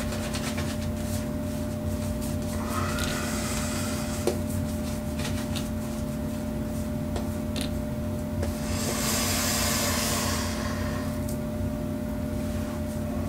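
Synthetic shaving brush swirling lather over face and beard stubble: a soft wet rubbing and swishing, with a louder, hissier stretch of brushing about nine seconds in and a few small clicks. A steady hum sits underneath.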